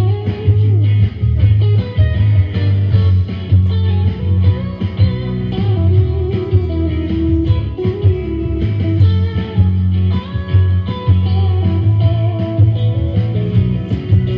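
A rock band playing an instrumental passage with no singing: two electric guitars, with a melodic line moving over a steady low bass and sharp percussive hits.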